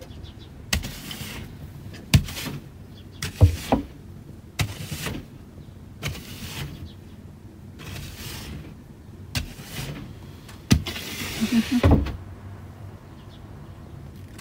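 Snow brush sweeping snow off a car windshield, heard from inside the car. Repeated strokes come roughly once a second, each a knock of the brush on the glass followed by a swish, with a longer, louder sweep toward the end.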